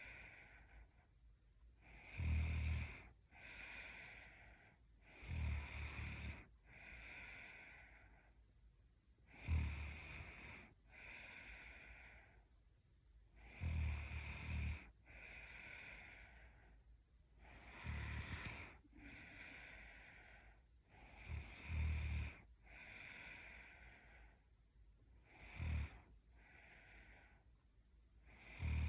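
A young woman snoring in her sleep: a loud, short, low snore about every four seconds, each followed by a softer breathy sound.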